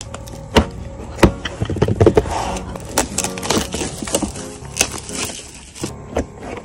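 An album's plastic and cardboard packaging being handled and opened: irregular sharp clicks, taps and rustles, over quiet background music.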